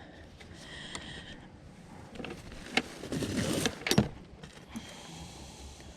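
Junk being picked up and handled: a few sharp knocks and clicks, with a short rattle about three to four seconds in.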